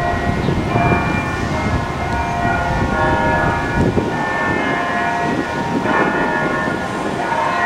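Church bells ringing: several bell tones overlap and ring on, with fresh strikes about every second, over a low rumble.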